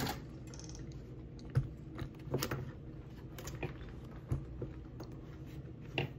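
Hard plastic tools being handled in and around a fabric tool pouch: scattered light clicks and taps, about one every second or so.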